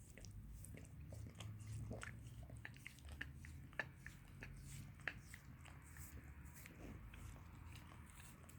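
Mixed-breed dog licking a person's foot at close range: faint wet lapping and tongue clicks in an irregular run, with two sharper smacks about four and five seconds in.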